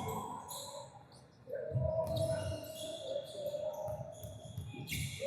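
Indoor basketball game: a ball bouncing on the court, with short high squeaks and voices echoing in a gym.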